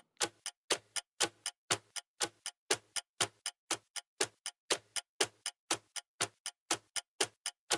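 Clock ticking sound effect: a steady run of sharp ticks, about four a second, alternating louder and softer in a tick-tock pattern.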